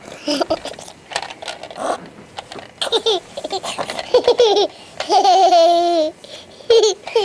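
A young child laughing in repeated short bursts, with a drawn-out high squeal of a laugh about five seconds in.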